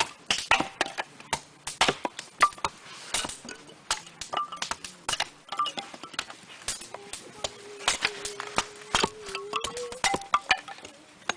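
Sharp, irregular knocks of an axe splitting small kindling for a campfire, several strikes a second. A faint wavering held tone runs underneath for a few seconds near the end.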